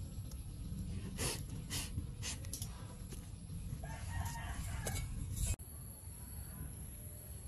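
A rooster crowing once, a pitched call lasting about a second just past the middle. A few sharp clicks come before it.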